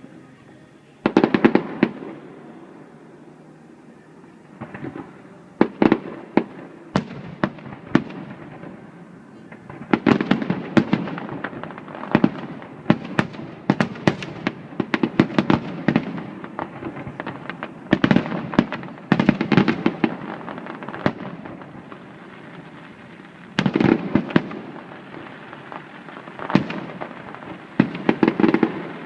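Fireworks display finale: many sharp shell bursts going off in rapid clusters of bangs, with short lulls between the volleys.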